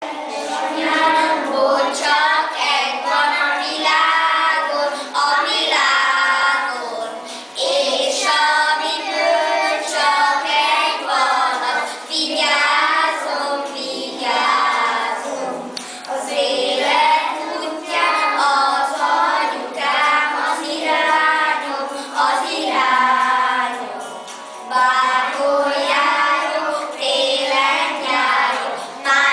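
A group of children singing a song together, young voices in unison with sustained notes and short breaks between phrases.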